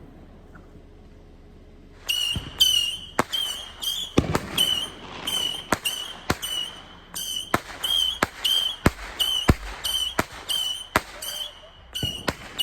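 Fireworks going off: after a quiet start, a rapid string of short, high whistles mixed with many sharp bangs begins about two seconds in.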